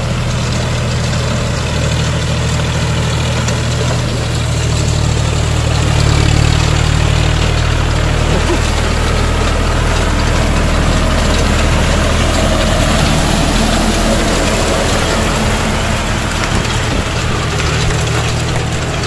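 John Deere 5050D's three-cylinder, 2.9-litre naturally aspirated diesel engine running steadily under load in third low gear, driving a rotavator through wet paddy mud. The engine grows a little louder about six seconds in.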